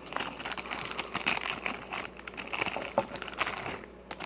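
Plastic packaging crinkling and crackling in irregular handling as a blind-box mini figure is unwrapped.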